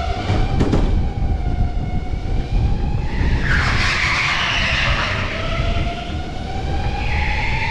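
Electric go-kart motor whining, its pitch slowly falling and then rising again toward the end as the kart slows and speeds up. Tyres squeal through the middle and again near the end, with a brief knock just under a second in.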